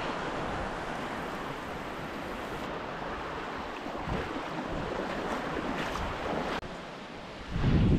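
Small surf waves washing in shallow water, with wind rushing on the microphone. The sound drops off abruptly about six and a half seconds in, and a louder low rush of wind comes near the end.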